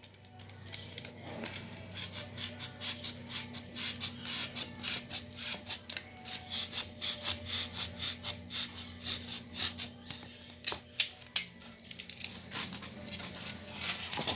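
Utility-knife blade cutting through styrofoam: a long run of short, scratchy crackling strokes, several a second, with a brief pause near the end.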